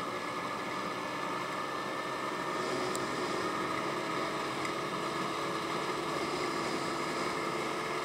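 Honda Ruckus scooter running steadily at cruising speed, its engine blended with wind and road noise.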